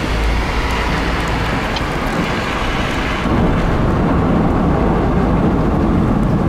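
Wind and rain from a severe thunderstorm rushing against the car and buffeting the microphone, a steady noisy rumble that turns deeper and louder about three seconds in.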